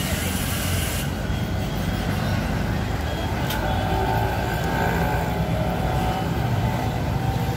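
Steady low rumble of street traffic and bustle, with a brief hiss in the first second and a single sharp click about halfway through.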